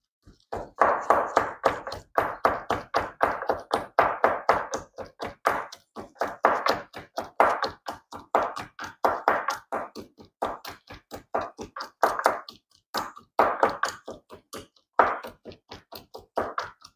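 Wooden pestle pounding in a small wooden mortar: rapid knocks, about four to five a second, pausing briefly a few times.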